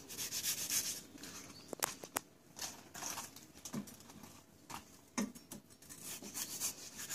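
Kitchen knife cutting cabbage on a cutting board: bursts of quick, crisp scratchy slicing strokes with quieter pauses and a few light clicks between.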